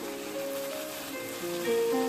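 Background music: a melody of held notes changing every half second or so, over a faint steady sizzle from the curry cooking in the pan.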